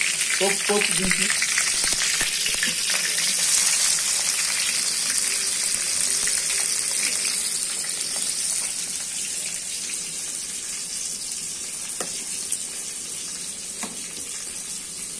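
Oil sizzling in an aluminium kadai as green chillies and then chopped onions fry. The sizzle is steady, easing off gradually in the second half.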